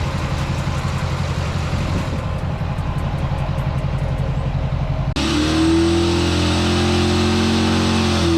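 Duramax diesel engine of a pickup truck running while driving. About five seconds in, the sound cuts abruptly to a steadier, higher engine hum.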